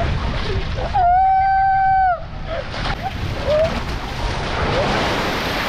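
A person's long held scream, about a second long and starting about a second in, over a steady rushing noise on a ride. Short shouts break through later.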